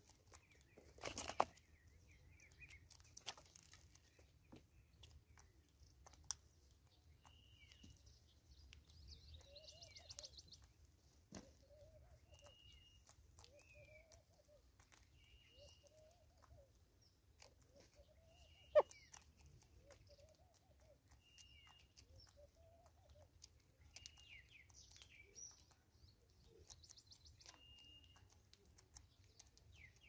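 Southern yellow-billed hornbills pecking seed at a feeder, with scattered sharp taps of bill on bowl and stump and a brief scuffle about a second in. In the background a bird repeats a short, high, level whistled note every couple of seconds, and for a while a lower rising-and-falling call repeats alongside it.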